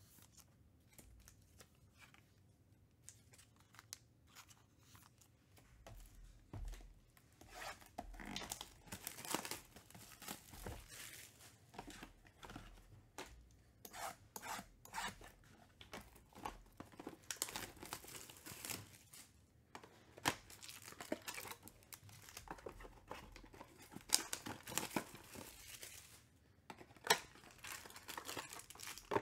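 Plastic shrink wrap being slit with a blade and torn off a cardboard trading-card box, crinkling, then the box's cardboard flap being pulled open: a string of short, irregular rustles, scrapes and clicks that begins a few seconds in.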